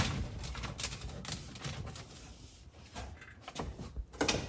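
Irregular light clicks, taps and crinkles of hands working HVAC foil tape and sheet metal at the joint between the ductwork and the air handler cabinet, with a louder knock near the end.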